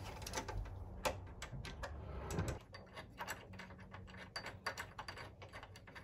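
Screwdriver turning the retaining screws out of a night latch's metal back plate: a run of small, irregular metal clicks and scrapes.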